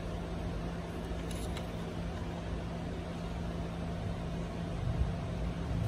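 Steady low hum and room noise, with faint clicks about a second and a half in and a few soft low bumps near the end.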